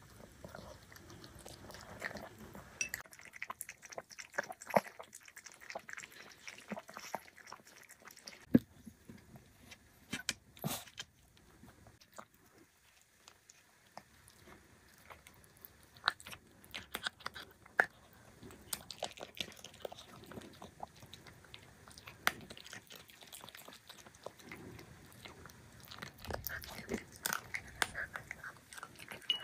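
A small poodle eating: wet chewing and smacking with irregular sharp crunches as it bites into a baked treat, and licking and tooth clicks against an empty ceramic bowl near the end.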